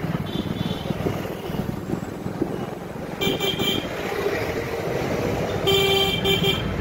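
Vehicle horns honking in dense street traffic over a steady engine and road rumble, heard from a moving motorcycle. A faint toot comes about half a second in, a run of short honks around three seconds in, and the loudest, two or three beeps, near the end.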